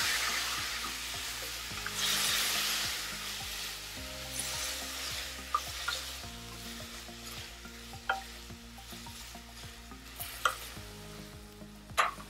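Chopped tomatoes, onion, garlic and ginger sizzling in hot oil in a kadai while being stirred with a spatula. The sizzle is loudest in the first few seconds and then dies down, with a few sharp knocks of the spatula against the pan, the loudest near the end.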